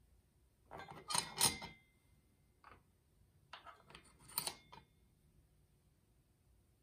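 Steel coil springs and retainers clinking and rattling as they are picked up and set into the metal housing of a DCT470 clutch torque damper. The sounds come in two clusters, about a second in and around four seconds in, each with a brief metallic ring.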